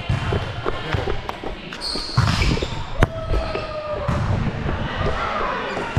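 Indoor gym sounds during a volleyball game: shoes squeaking on the court floor and balls thudding on the floor, with one sharp smack of a volleyball about three seconds in.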